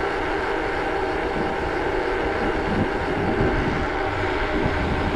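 Wind buffeting the microphone of a camera on a moving bicycle, a steady rushing noise with uneven low rumble, mixed with the bike's tyres running on asphalt.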